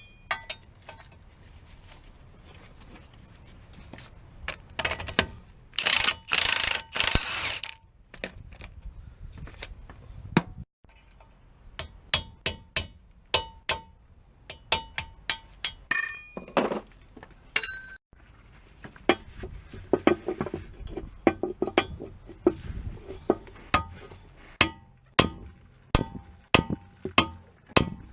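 Metal hand tools working on car parts: a long run of sharp clicks, clinks and knocks, some with a short metallic ring, and a burst of rushing noise lasting about two seconds near the start.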